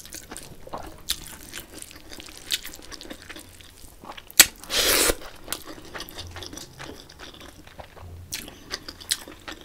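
Close-miked eating of rice and curry taken by hand: chewing with crunchy bites and many small wet mouth clicks, and a louder crunch about five seconds in.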